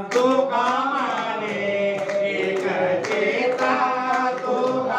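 Group devotional singing (bhajan) in several voices, with hand claps keeping the beat.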